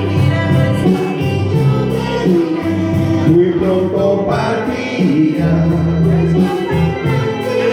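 Music with singing: a voice over a steady bass and accompaniment.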